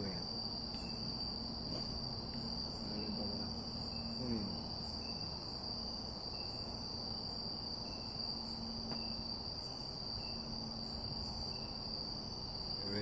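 Night insects trilling: one steady, high-pitched, unbroken drone of crickets in forest.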